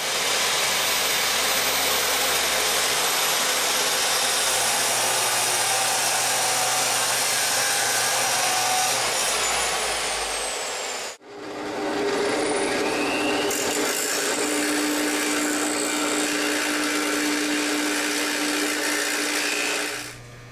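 DeWalt abrasive chop saw running and cutting through a half-inch aluminum rod, a loud steady grinding whir. It breaks off suddenly about halfway through and picks up again at once at the same level.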